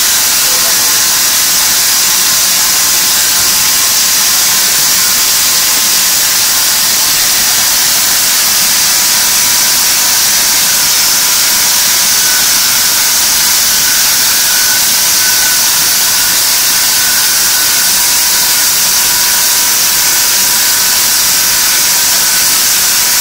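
Leather splitting (skiving) machine running steadily as belt-length water buffalo leather is fed through to be thinned: a loud, even hiss with a faint steady hum.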